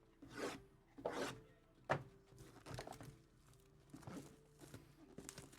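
Packaging being handled and opened: a string of short rustles and light knocks, about one a second, the loudest in the first two seconds.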